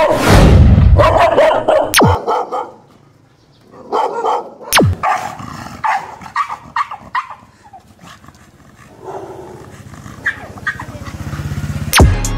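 Several dogs barking, loud and dense for the first two seconds, then scattered barks that fade towards the end. A quick falling glide cuts across the barking about two seconds in and again near five seconds.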